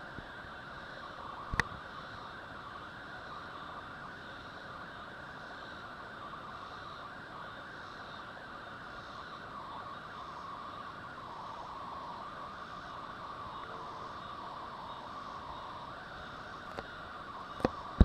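Steady background noise, an even hiss with a band of sound in the middle range, broken by a single sharp click about a second and a half in and a few knocks right at the end.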